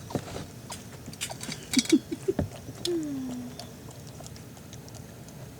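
Wet clicking and ticking as a mother cat licks her newborn kittens, with a few very short squeaks near the middle and one brief falling murmur just after.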